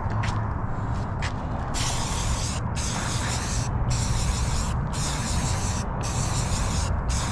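Aerosol spray can of primer spraying in repeated bursts of about a second each with short pauses between, starting about two seconds in. A couple of faint clicks come before the spraying.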